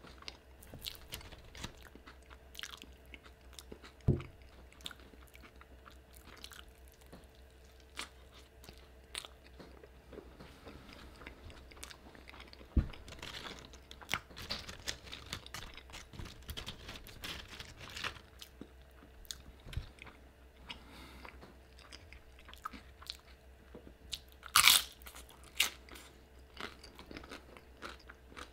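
A person chewing a mouthful of carnitas burrito close to the microphone, with many small wet clicks and crisp crunches. The loudest crunch comes about three-quarters of the way through.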